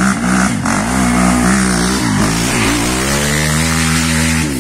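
Dirt bike engine revving hard as it climbs past close by. The revs drop and rise again several times, then hold steady and high for the last second or so.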